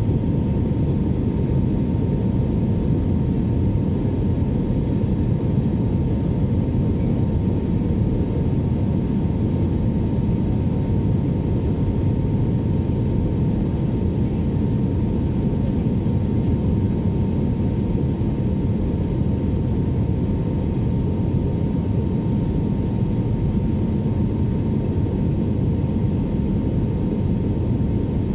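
Jet airliner cabin noise on the descent: a steady roar of engines and rushing air heard from a window seat, with a faint steady whine over it.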